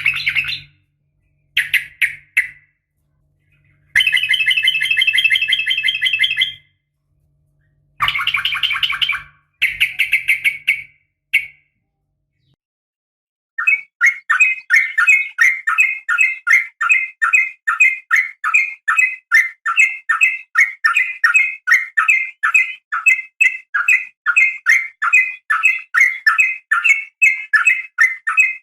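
Sooty-headed bulbul (trucukan) calls, presented as a female calling a male. First come several dense, chattering trill bursts of a second or two each, with short gaps between. After a brief pause a long, even run of short sharp notes follows at about three a second, the rapid repeated 'ropel' calling.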